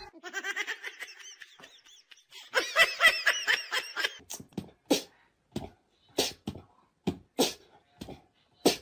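A person laughing: soft laughs at first, then a quick run of laughs about two and a half seconds in. After that come single short bursts about every half second.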